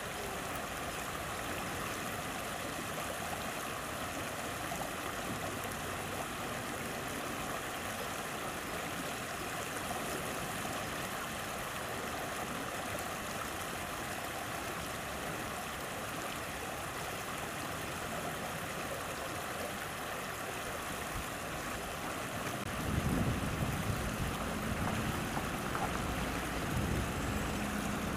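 Steady rushing of flowing river water. About two-thirds of the way through, a louder low rumble with a faint steady hum joins it.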